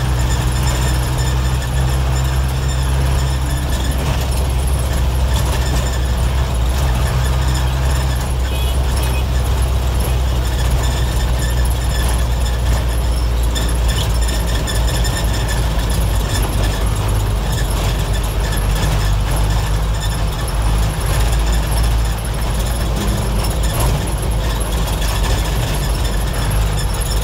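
1990s Mitsubishi diesel engine of a medium bus running steadily under way, heard from inside the cabin as a loud, low drone, with road and body noise over it.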